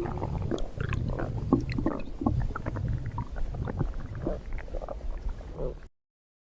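Stomach growling: a low rumble with irregular gurgles and pops, cutting off abruptly near the end.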